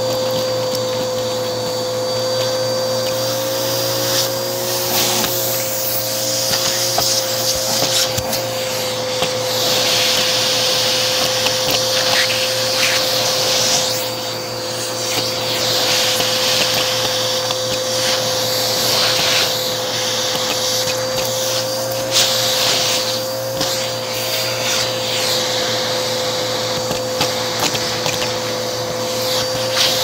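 Bissell CleanView vacuum running steadily through its crevice tool, sucking jigsaw puzzle pieces off carpet. There is a constant motor whine, a rush of air that swells and eases as the nozzle moves, and scattered clicks as pieces go up the tool.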